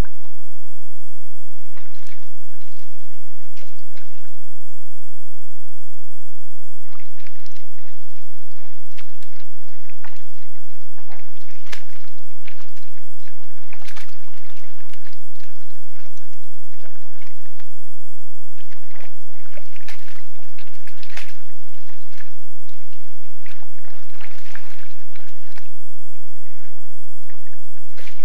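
A wild boar rooting and feeding in wet swamp mud: irregular bouts of squelching and splashing, busiest in the middle and later part, over a steady high hiss.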